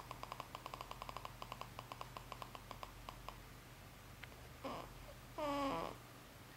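A baby snoring. For about three seconds the snore is a fast rattle of quick clicks, about ten a second. Then comes a noisy breath, and near the end a short snore with a pitched tone that falls.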